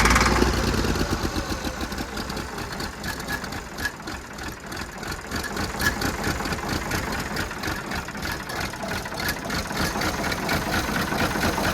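Old engine that has just caught on ether starting fluid after a hard cold start, running unevenly. It is loudest at first and settles lower over the first few seconds.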